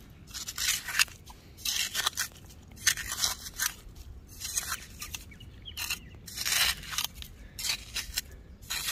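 A metal hand trowel digging and scraping through wet, shell-strewn mud, in repeated short strokes about one to two a second, turning over the sand to uncover clams.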